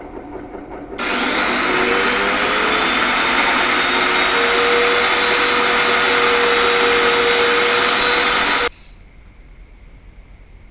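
Router motor running at full speed, its whine rising as it spins up about a second in, then cutting off suddenly near the end.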